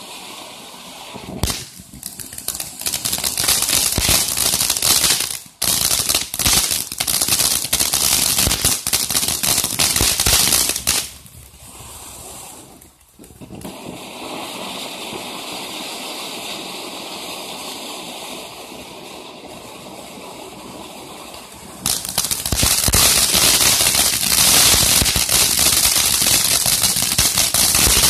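Flutterby ground fountain firework burning: a loud rushing hiss thick with crackles, easing to a quieter steady hiss for about ten seconds in the middle, then loud and crackling again near the end as it throws out popping stars.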